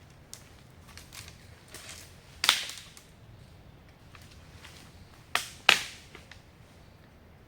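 Three sharp cracks: a loud one about two and a half seconds in, then two close together a little past five seconds, with a few faint ticks between them.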